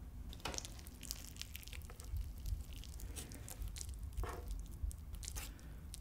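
Wooden spoon and chopsticks working through kimchi fried rice and a runny fried-egg yolk on a plate: a string of soft clicks, scrapes and squishes, with a few sharper clicks about half a second in and again around four and five seconds.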